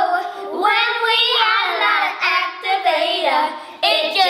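Young girls singing a song together.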